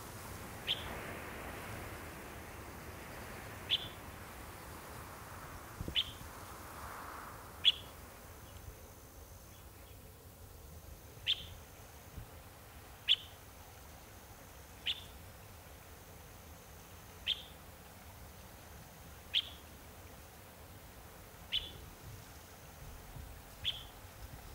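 A bird repeating a single short, sharp chirp about every two seconds, over a faint outdoor hiss.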